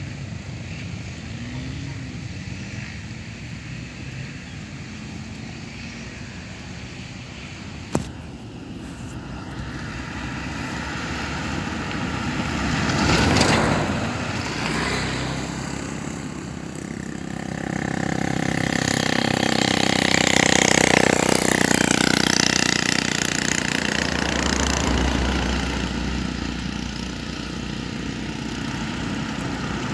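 Motor vehicles passing, their engine noise swelling and fading twice, with the second pass longer and louder. A single sharp click comes about eight seconds in.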